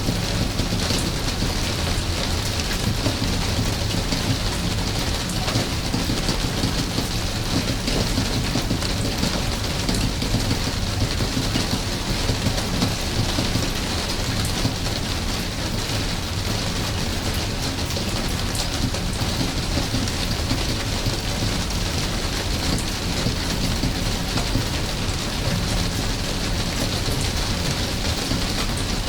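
Steady rain falling, an even hiss scattered with many small drop ticks, over a constant low rumble.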